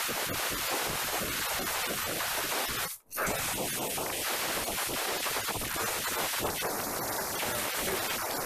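Compressed air hissing steadily from an air blow gun, blasting dust out of a portable electric heater's grille and fan. The air cuts off sharply for a moment about three seconds in, then starts again.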